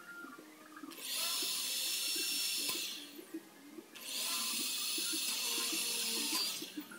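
Corded electric drill drilling into a galvanized steel hollow-section frame, running in two bursts of about two to three seconds each with a steady high whine.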